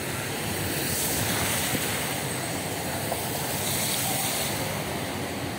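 Heavy rain falling: a steady, even downpour hiss.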